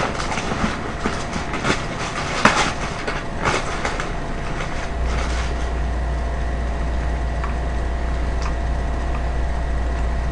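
Paper lining of a fried-chicken box rustling and crinkling as it is opened and spread out, with sharp crackles over the first few seconds. A steady low hum starts about halfway through.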